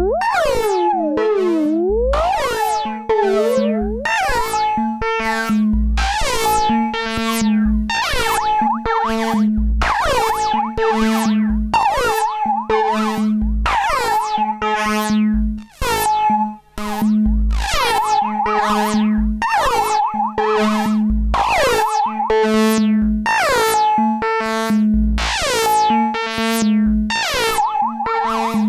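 Vermona Perfourmer MKII analog synthesizer playing a steady repeating pattern of notes over a held low tone, fed through a Behringer FX2000 flanger or phaser preset that sweeps each note down and up in a whooshing swirl. The sound drops out briefly twice about halfway through.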